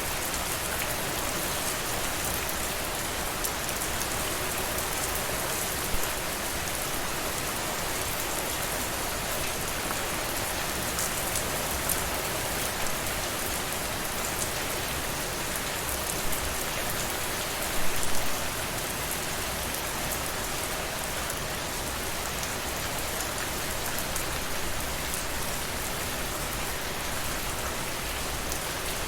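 Steady rainfall: a continuous even hiss of rain with fine individual drop ticks, and a few louder single drops or drips, a cluster of them about two-thirds of the way through.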